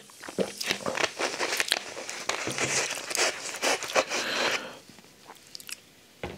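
Close crackling and crinkling of a large plastic soda bottle being handled after a drink, with many small clicks. It dies down after about four and a half seconds, leaving only a few faint clicks.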